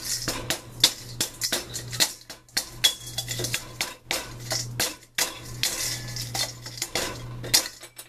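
Bamboo charcoal being pounded and crushed with a stick in a stainless steel bowl: rapid, irregular knocks and clinks against the metal, with the brittle charcoal cracking.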